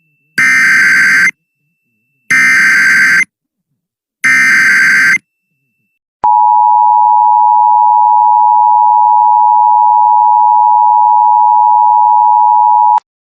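Emergency Alert System tones. First come three one-second bursts of SAME header data, a harsh warbling digital screech with a second's pause after each; they encode the Severe Thunderstorm Warning. Then the two-tone EAS attention signal (853 and 960 Hz sounded together) holds steady for about seven seconds and cuts off abruptly.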